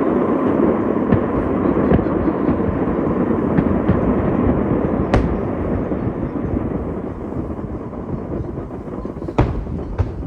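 Fireworks display: a dense, continuous crackling and rumbling of bursting shells. Two sharp bangs stand out, one about five seconds in and a louder one near the end.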